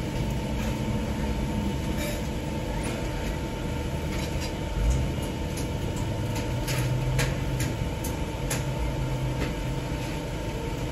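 Car cabin noise while driving: a steady low engine and road rumble, with a faint steady whine and a few light clicks.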